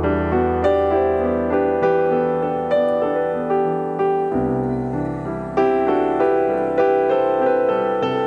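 Background piano music: a slow melody of struck notes, each fading after it is played, over held low bass notes that change about halfway through.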